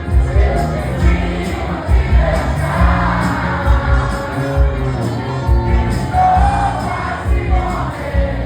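Live brega band playing a song with a singer over a steady beat, the audience cheering and singing along.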